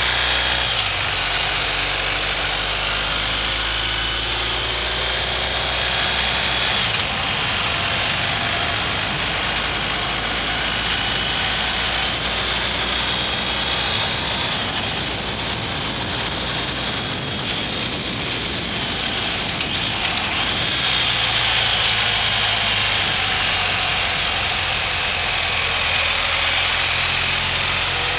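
BMW R1250 GS Adventure's boxer-twin engine running steadily on the move, mixed with wind rushing over the microphone. Through the middle the engine's steady hum sinks under the wind, and it comes back clearly about three quarters of the way through.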